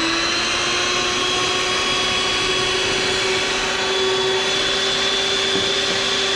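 Small electric stand mixer running steadily on low speed, its twin beaters turning through pancake batter with an even, unchanging hum.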